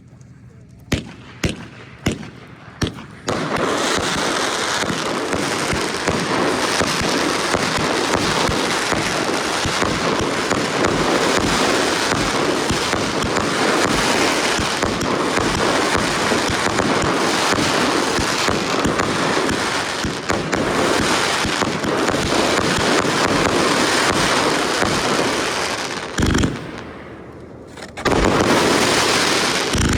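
Subzero 85-shot firework cake firing: a few separate launches in the first three seconds, then a dense, unbroken barrage of shots and crackle. It eases off briefly about 26 seconds in, then fires again in a final dense burst near the end.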